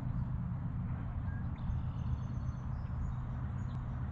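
Steady low outdoor rumble with a few faint, high bird chirps over it, around the middle and near the end.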